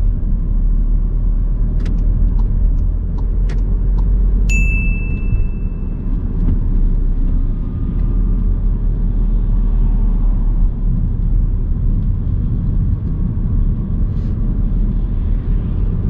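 Car driving, heard from inside the cabin: steady road and engine rumble, with a few light clicks and a single high beep about four and a half seconds in that lasts a second or two.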